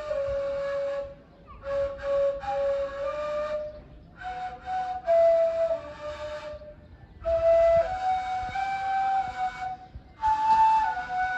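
Ney, the end-blown reed flute of Sufi music, playing a slow, breathy melody of long held notes. It comes in several phrases with short pauses for breath between them.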